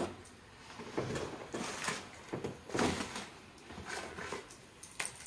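Rustling and handling of fabric and a shopping bag as a garment is pulled out and unfolded, in a string of irregular soft rustles and light knocks.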